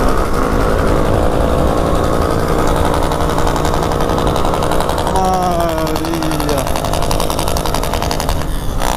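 Yamaha XJ6 inline-four motorcycle engine running under way, with a steady rumble of wind on the microphone. About five seconds in, an engine's pitch falls smoothly over a second or so as the revs drop.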